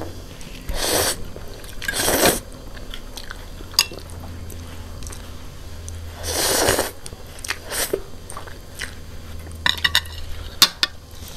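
Close-up eating sounds: three long slurps of instant noodles, about a second in, at two seconds and again around six and a half seconds, with chewing and sharp smacking clicks in between, clustered near the end, as noodles and fried chicken feet are eaten.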